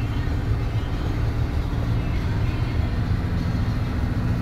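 Mercedes-Benz Actros truck engine running steadily, a low even drone heard from inside the cab, with road noise under it as the truck descends a steep mountain road.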